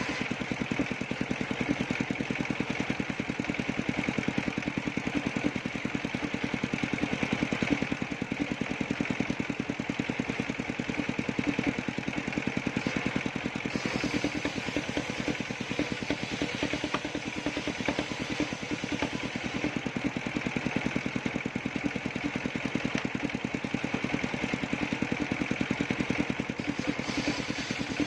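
Engine of a circular sawmill running steadily, with a rapid, even beat.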